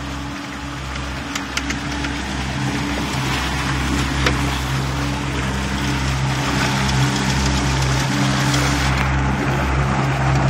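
Mercury outboard motor running steadily with the boat under way, water rushing and splashing past the hull. A few small clicks sound in the first few seconds.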